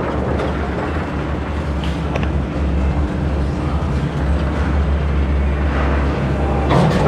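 Steady low hum of running machinery, with a few faint steady tones above it.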